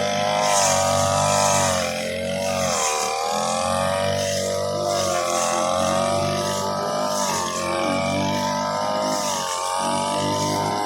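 Small petrol engine of a grass-cutting machine running at high speed, its pitch wavering and dipping briefly several times as it is loaded and eased.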